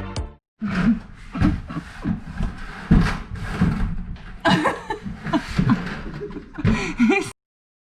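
Background music stops right at the start. Then come indistinct voices that cut off suddenly near the end.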